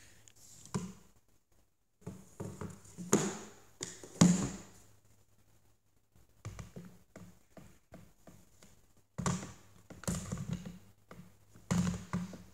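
AR-15 lower receivers with their stocks being handled, lifted off and set down on a digital scale on a wooden table: irregular knocks, taps and clatter in bursts, loudest about three to four seconds in, with a short lull about halfway.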